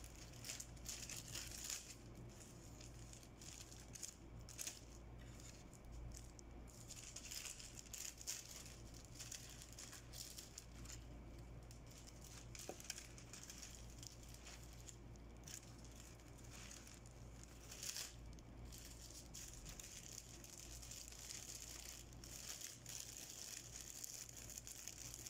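Faint, irregular crinkling and rustling of foil wrappers as a bunch of gold-foil-wrapped chocolates on sticks is handled and arranged, with scattered small ticks, over a steady low hum.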